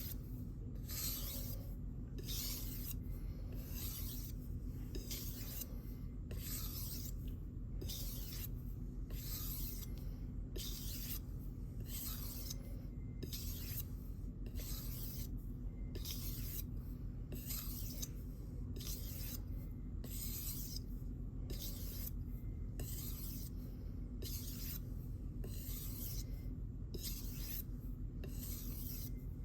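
Steel knife edge stroked lightly across a Shapton Glass 1000-grit whetstone to remove the burr: an even run of scraping strokes, about one a second.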